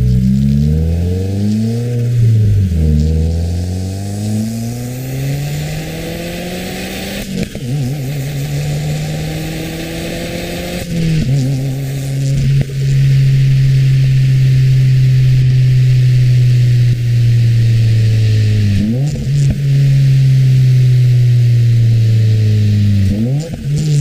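2015 Subaru WRX's turbocharged 2.0-litre flat-four, with a muffler-delete axle-back exhaust, heard from inside the cabin under hard acceleration. The engine note climbs, drops at a gear change a couple of seconds in, and climbs again through a long pull. It drops again about halfway, then holds a steady note, dipping briefly twice near the end.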